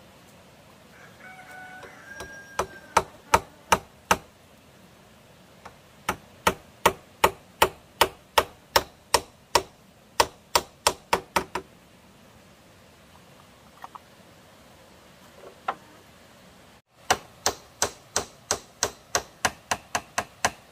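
Hammer driving nails into bamboo to fix woven bamboo strips, at about three sharp blows a second. It comes in runs, with a pause in the middle and a slightly quicker run near the end.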